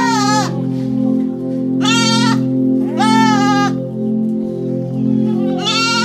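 Goats bleating: about four separate quavering, high-pitched calls, each roughly half a second long. They sit over background music with steady sustained notes.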